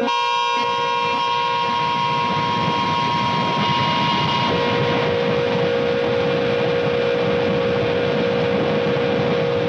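Harsh noise music: a dense, unbroken wash of electronic noise with steady held tones over it. A higher tone fades out about four and a half seconds in as a lower drone takes its place.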